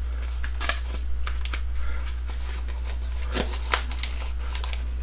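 Plastic and card packaging of a photo-etch set being opened by hand, rustling and crinkling in scattered short crackles and clicks.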